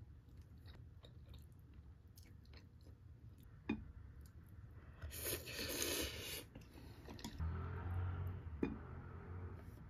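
Ramyeon noodles being eaten: a few light clicks of chopsticks and spoon, a slurp of noodles about five seconds in, then chewing.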